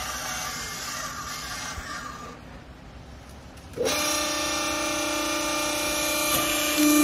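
Hydraulic baler's pump motor starting up about four seconds in with a brief rising whine, then running with a steady hum that grows louder near the end. Before it there is a noisy rustle of handling at the strapped bale.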